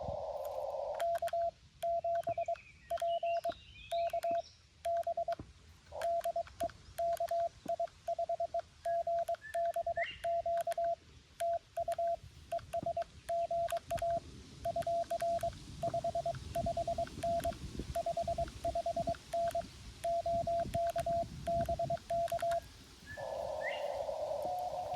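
Morse code sent from a Xiegu G90 transceiver, heard as the radio's sidetone: a single steady tone of about 700 Hz keyed in dots and dashes for about twenty seconds. Just before and after it, the receiver's narrow CW-filter hiss is heard with faint Morse in it.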